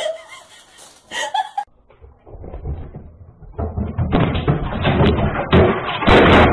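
Repeated knocks and bangs as a cat topples a flat-screen TV off its stand, starting about two seconds in and loudest near the end.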